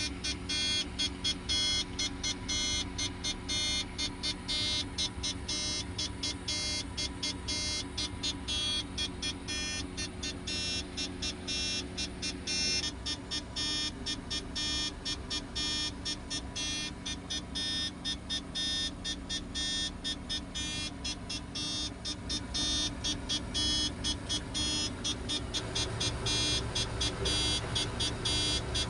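A working crane's engine runs steadily under a strange, rapid high-pitched pulsing sound, about three pulses a second, like a buzzer. The engine grows louder near the end.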